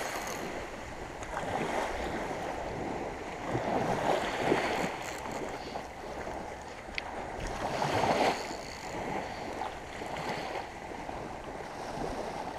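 Small surf waves washing onto a sandy shore, swelling and fading every few seconds, with wind blowing across the microphone.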